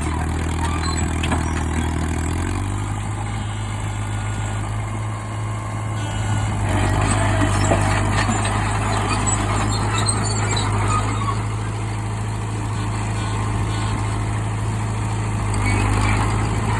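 Old bulldozer engine running steadily; about two seconds in it speeds up and holds at higher revs. From about six to eleven seconds in, scraping and clatter join the engine as the dozer pushes concrete.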